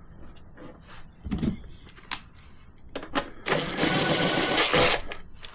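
Clatter of tools and parts while a plastic skid plate is fitted to a dirt bike: several sharp clicks and knocks, then a loud rasping, scraping noise lasting about a second and a half near the end.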